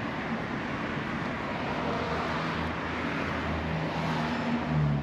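Steady road-traffic noise with a low engine hum that grows in the second half.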